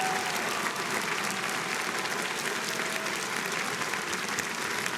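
A large audience applauding steadily, many hands clapping at once, with a few faint voices in the crowd.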